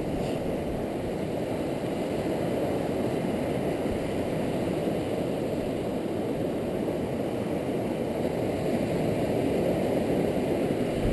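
Steady low rumble of surf breaking on the beach, growing slightly louder near the end.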